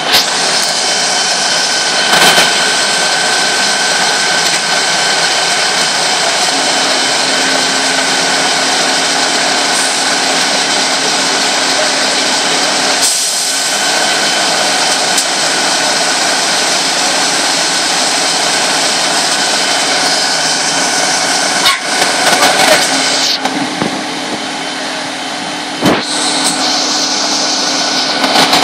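Fire engines running at the scene: a loud, steady machine drone with a low hum that joins about six seconds in. A few brief bumps break through, near the middle and near the end.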